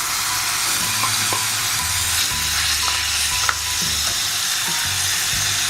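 Chicken pieces with onions and ginger-garlic paste sizzling steadily in hot oil in a pan, stirred with a ladle that clicks against the pan a few times.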